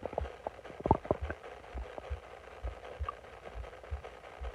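Bloated stomach gurgling: a few short, irregular bubbly pops and squelches, the clearest cluster about a second in and a small squeak near three seconds, over soft low thuds.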